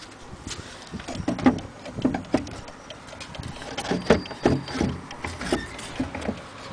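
Uneven knocks, clicks and rattles from a vintage Gustav Becker wall clock's brass movement and dial being handled.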